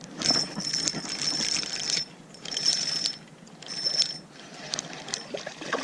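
Fishing reel whirring in three spells, a long one and then two short ones, with a steady high whine, while a bass is being fought on light line. A few lighter ticks follow near the end.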